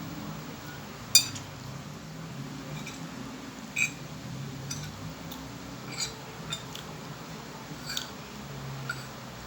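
Cutlery clinking against a plate during a meal: about seven sharp metallic taps, the loudest about a second in, over a low steady hum.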